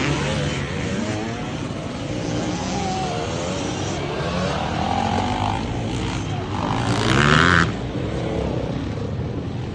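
Several enduro dirt-bike engines running and revving at once as riders pull away one after another. One bike revs louder a little after seven seconds in.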